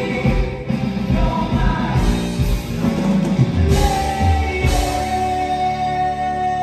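Live rock band and lead singer performing, with a pounding drum beat; about four seconds in the drums drop out and one long note is held.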